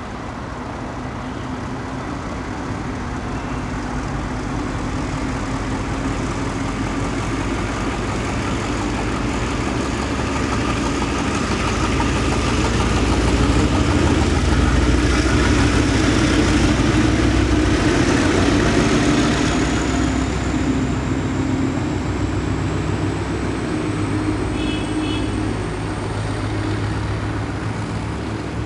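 DF12 diesel locomotive running under power as it accelerates its passenger train, the engine growing louder toward the middle and easing off somewhat after. In the second half a thin high whine rises slowly in pitch as the train gathers speed.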